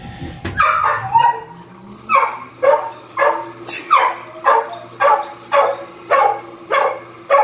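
Dog barking over and over in short excited yelps, a little under two a second: a dog with separation anxiety calling to its owner as he comes down to it.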